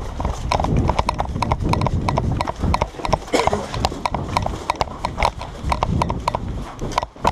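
Footsteps of a player running, a quick, even series of thuds with kit jostling, over a low rumble of movement against the microphone.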